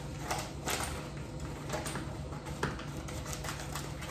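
Plastic vacuum-seal bag rustling and crinkling in short, irregular bursts as it is handled, over a steady low hum.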